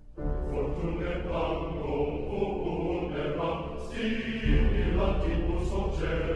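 Background music: a choir chanting over a steady low bass, which swells about four and a half seconds in.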